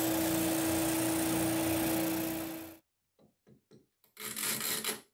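Spindle sander running with a steady hum and a slow rhythmic pulse as its sanding drum works the curved edge of a plywood template, cutting off suddenly about three seconds in. A few faint ticks and a short rough scrape follow near the end.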